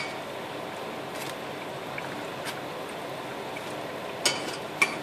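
Deep-frying oil sizzling steadily around luqaimat dough balls in a saucepan. Metal tongs click sharply against the pan and wire-mesh strainer twice near the end as the fried balls are lifted out.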